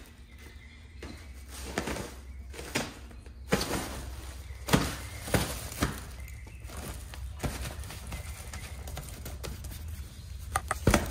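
Irregular light thumps and knocks as cats play in a pop-up fabric play tunnel and with a feather wand toy on a hard floor. A quick cluster of knocks comes near the end.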